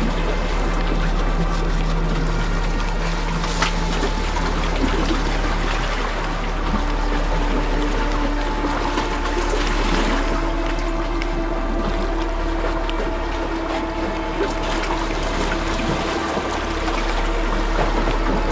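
Background music with long held notes that shift about a third of the way through, over a steady wash of sea water on the rocks.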